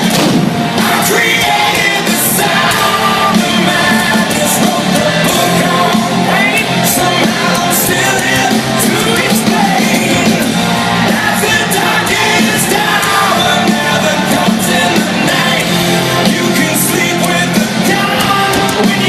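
Rock band playing loudly live, with a sung and shouted lead vocal over the band.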